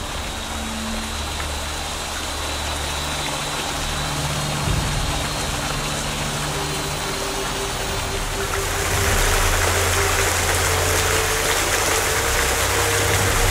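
Small waterfall splashing down a sandstone rock face: a steady rush of falling water, louder and brighter from about nine seconds in.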